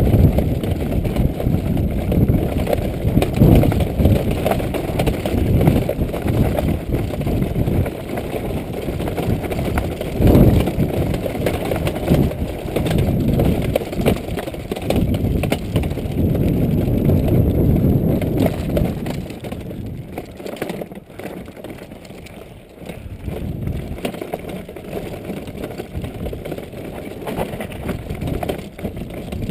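Stricker Puma handbike rolling over rough grassy ground: a continuous low rumble with rattling and occasional heavier knocks from the frame and wheels bouncing over the bumps, easing to a quieter rumble about two-thirds in.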